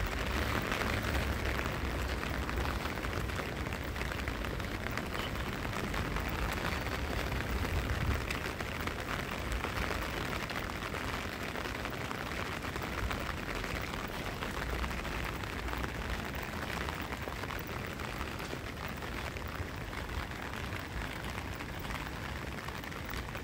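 Steady rain falling on a paved street, an even hiss and patter, with a low rumble coming and going.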